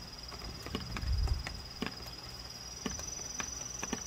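Rain drops ticking irregularly onto a wet plastic tarp, a few sharp taps a second, under a steady high-pitched insect trill. A low bump comes about a second in.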